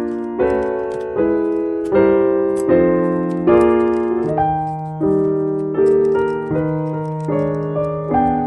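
Background piano music: chords struck about every three-quarters of a second, each one dying away before the next.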